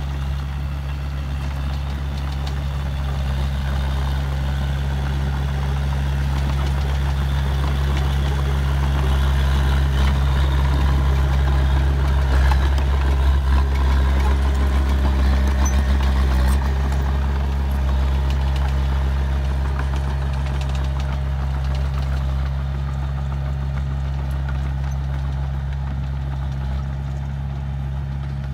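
Small Komatsu crawler bulldozer's diesel engine running steadily under load as the dozer pushes soil with its blade. It is loudest in the middle, when the machine is closest.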